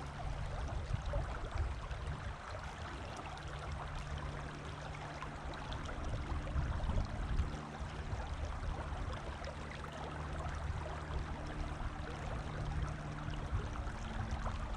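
Steady rush of creek water flowing.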